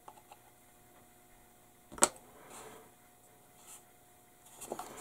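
Quiet handling of a plastic model kit part over a cutting mat: soft rustles and small ticks, with one sharp click about two seconds in, over a faint steady hum.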